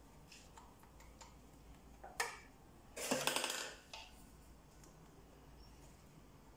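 A metal teaspoon clinking and scraping against a pan while filling is spooned into dry cannelloni tubes. There is a sharp clink about two seconds in, then about a second of scraping and rattling, with a few faint ticks earlier.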